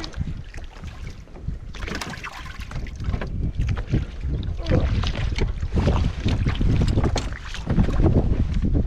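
Wind buffeting the microphone in gusts, over water lapping against a small polyethylene boat's hull.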